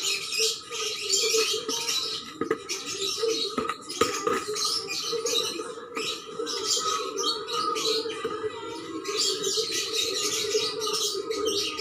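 Busy, continual chirping of many small birds, with a few light knocks and scrapes of a scoop working potting soil.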